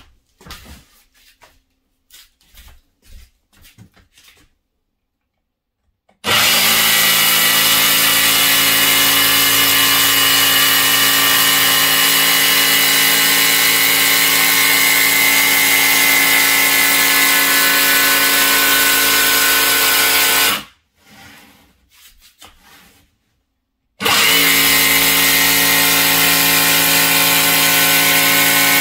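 Ryobi cordless jigsaw cutting through a white board. After a few faint handling clicks the saw starts about six seconds in and runs steadily through the cut for about fourteen seconds, stops, and starts cutting again about three and a half seconds later.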